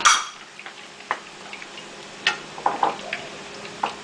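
Wooden spatula knocking and scraping against a stainless steel frying pan, stirring garlic and dried red chilies in hot oil: a handful of irregular taps, the loudest right at the start.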